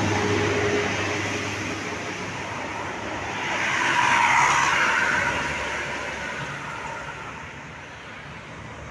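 Road vehicle passing by: the tyre and engine noise swells to a peak about four seconds in, then fades away.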